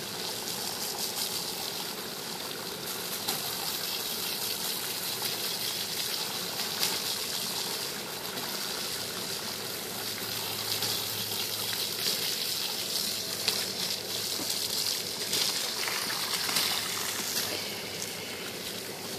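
Garden hose spraying a steady jet of water onto a bison's thick, wet coat, a continuous hissing gush with splashing.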